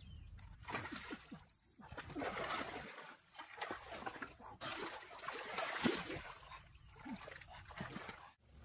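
Water splashing again and again as a wooden pole is jabbed and thrashed into a shallow rocky stream, in uneven bursts.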